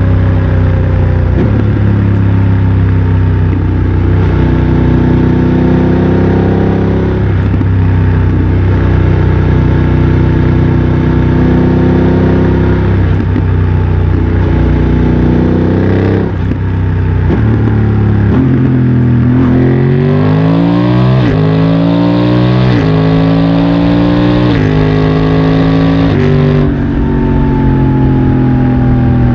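BMW F900 XR's parallel-twin engine through a MIVV X-M1 aftermarket exhaust, loud and running at a fairly even pace for most of the time. About two-thirds in it accelerates hard: the revs climb and drop back several times in quick succession with no break in the sound, quickshifter upshifts through the gears. It settles to a steady cruise near the end.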